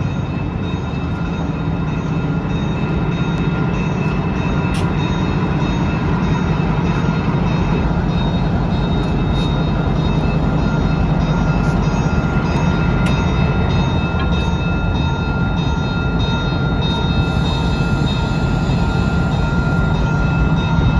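York Railway MPA-1 locomotives running light, a steady, loud engine rumble with a thin high whine over it and scattered sharp clicks.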